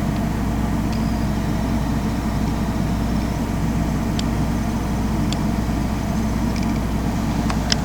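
Steady low machine hum with a constant noisy rush, broken by a few faint clicks.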